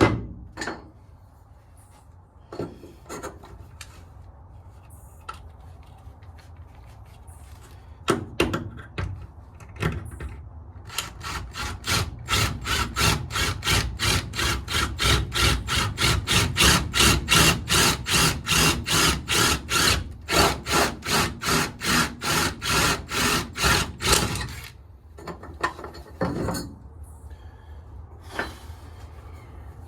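Scattered knocks and handling clicks, then a hand tool worked back and forth, about three strokes a second, for around thirteen seconds before stopping, followed by more knocks.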